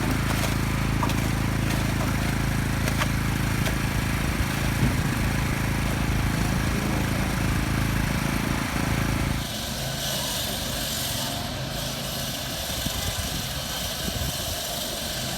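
An engine running steadily. About nine seconds in the sound changes abruptly to a quieter engine under a strong, steady hiss.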